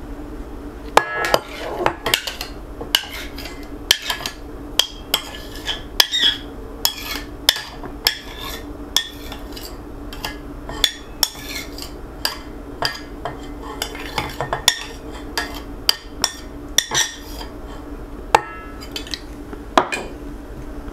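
A utensil scraping and clinking against a bowl as a sour cream and egg mixture is spooned in, with many irregular clicks and knocks. A steady low hum runs underneath.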